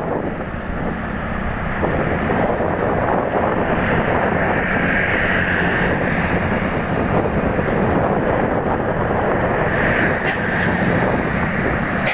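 Steady vehicle noise with wind buffeting the microphone, a brighter hiss rising about four seconds in and again near the end.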